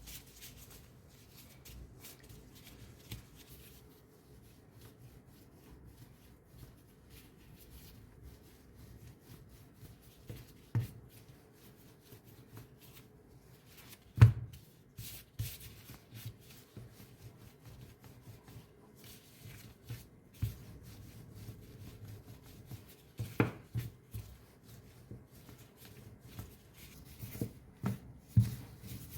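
Hands working food and utensils on a kitchen surface: soft, irregular rubbing and handling sounds, with a few sharp knocks, the loudest about 14 seconds in.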